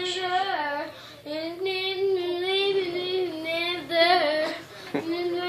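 A young girl singing solo without accompaniment, holding long, slightly wavering notes with short breaks between phrases.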